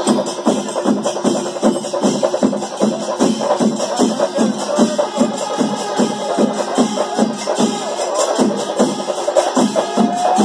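Chenda melam, the Kerala temple drum ensemble, with many chenda drums beating a dense, steady rhythm. A pitched note rises near the end.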